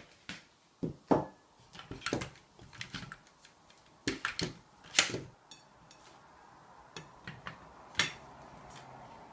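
A plastic adjustable dog bowl stand being handled: irregular clicks and knocks as its legs and ratcheting top joint are worked by hand, with a sharper knock about eight seconds in as a ceramic plate is set onto it.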